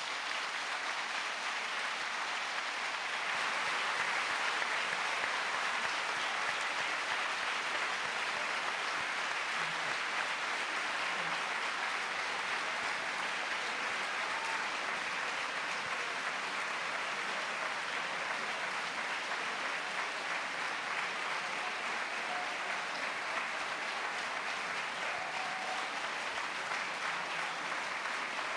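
Large audience applauding long and steadily after a lecture ends, the clapping swelling a few seconds in and then holding.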